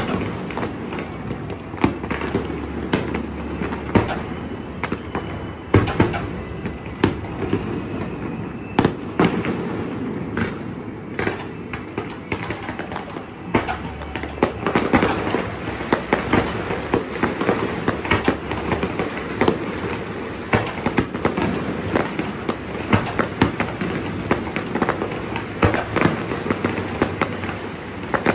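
Fireworks going off in a dense, continuous barrage: aerial shells bursting and ground-level fireworks crackling, many sharp bangs and pops at irregular intervals.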